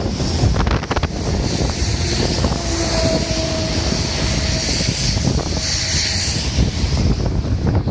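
Wind buffeting the microphone during a rainstorm: a steady heavy rumble with noise over it. A faint held hum comes in near the middle for about a second and a half.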